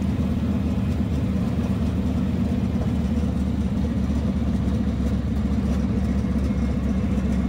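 North American Harvard trainer's Pratt & Whitney R-1340 nine-cylinder radial engine running steadily at low power while the aircraft taxis after landing, heard from inside the open cockpit.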